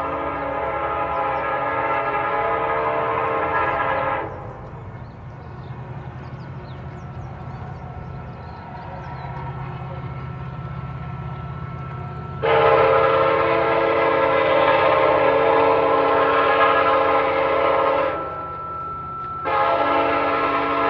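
A train's horn blowing long, steady blasts over the low rumble of the passing train. The first blast stops about four seconds in, a second sounds for about six seconds in the middle, and a third starts near the end.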